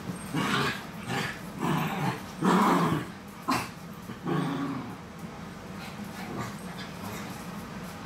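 Two small dogs play-fighting, growling in a string of short bursts, the loudest about two and a half seconds in. The growls stop after about five seconds.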